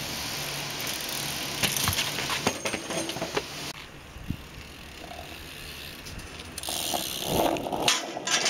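BMX bike rolling on asphalt, its chain and freewheel rattling with scattered sharp clicks. Near the end comes a cluster of harder knocks as the bike hops onto a steel flat rail.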